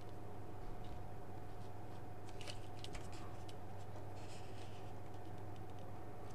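Faint light clicks and a brief soft scrape of a craft knife blade working against a gel filter sheet along a steel ruler, over a steady low hum.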